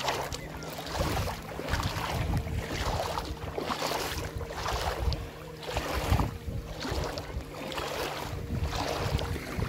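Small waves lapping on a pebble lakeshore, a soft wash about every second, with wind rumbling on the microphone and a faint steady hum underneath.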